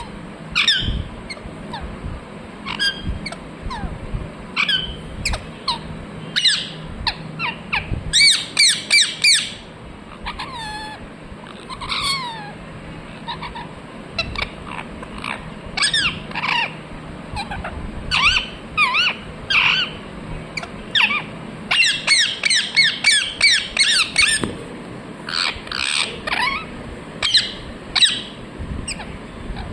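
Ringneck parrot chirping and squawking: short, sharp repeated calls, breaking twice into quick rapid runs, once about eight seconds in and again a little past twenty seconds.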